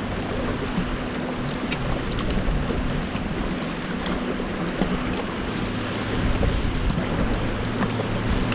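A sit-on-top fishing kayak being paddled through choppy shallow water: paddle blades splashing and water sloshing against the hull, with wind noise on the microphone.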